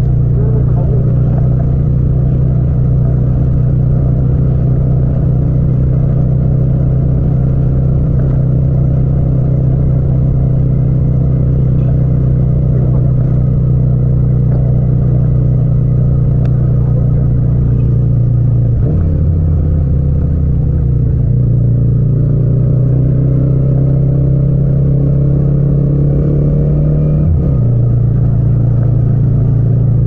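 Yamaha MT-07's 689 cc parallel-twin engine running steadily while cruising in fourth gear. The engine note shifts briefly about two-thirds of the way through and again near the end.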